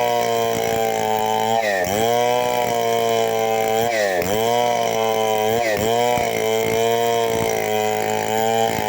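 Chainsaw cutting a log of hard mangosteen wood into boards, its engine running steadily under load. The engine pitch dips briefly and recovers about four times as the chain bites into the wood.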